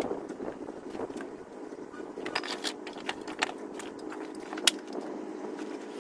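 Light metallic clinks and scrapes from tools being handled under a truck beside its wheel, over a steady low machine hum; one sharper click comes a little before the end.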